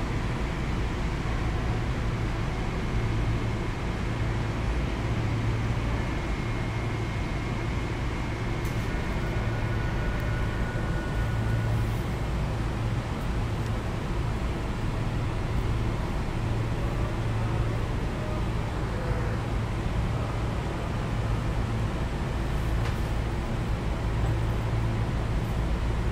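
Sotetsu 8000 series electric train standing at a station platform, heard from inside the car: a steady low hum from the car's onboard equipment.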